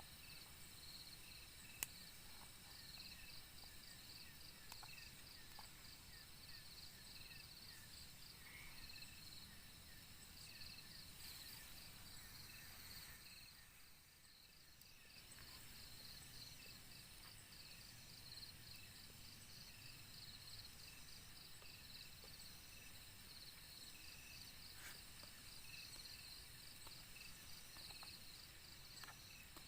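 Faint chorus of forest insects: a steady, rapid high chirping with slower, regularly repeated chirps beneath it, over a low hiss. A single sharp click about two seconds in.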